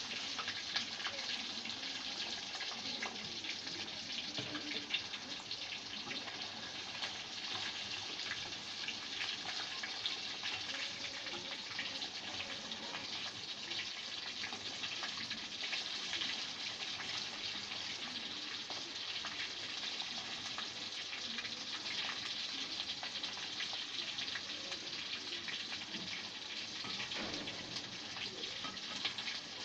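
Food frying in hot fat in a pan: a steady crackling sizzle.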